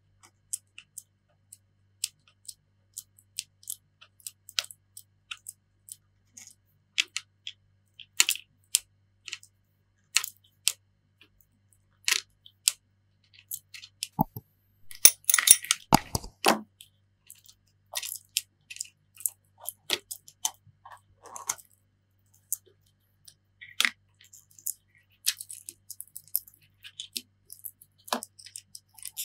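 Scattered small clicks, taps and crackles of a plastic pry tool and fingers working on the parts and battery inside an opened iPhone 7, with a denser, louder run of crackling about halfway through.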